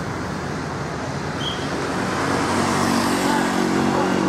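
Tour bus's diesel engine running as the bus rolls slowly toward the listener, getting louder about halfway through.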